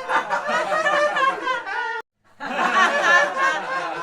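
Several voices giggling and snickering, a short looped laughter clip. It cuts out for a moment about two seconds in and then starts over from the beginning.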